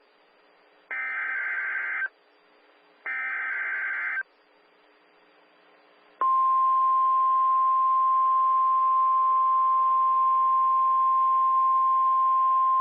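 The last two of three bursts of an Emergency Alert System SAME digital header, buzzy warbling data tones about a second each. About six seconds in, the steady 1050 Hz NOAA Weather Radio warning alarm tone starts and holds.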